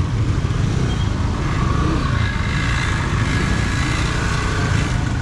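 Steady low rumble of vehicle traffic, with faint background voices above it.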